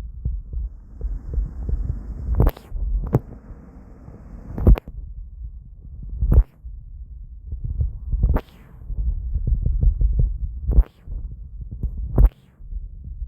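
Low, uneven rumbling on the microphone, broken by about seven sharp knocks at irregular intervals.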